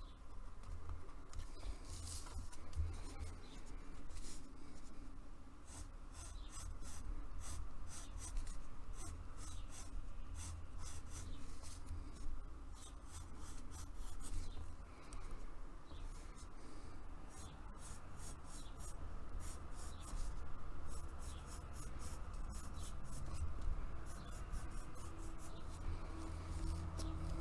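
Coloured pencil scratching on paper in runs of quick, short strokes as a drawing is outlined and shaded, over a steady low hum.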